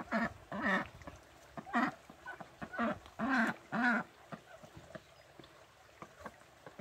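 Domestic ducks quacking: a run of about six loud quacks over the first four seconds, then only faint sounds.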